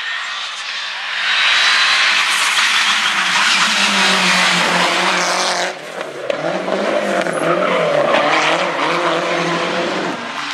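Rally car driving hard past close by, its engine at high revs with tyres squealing. It gets loud about a second in, cuts briefly near six seconds as the driver shifts or lifts, then the engine revs rise and fall.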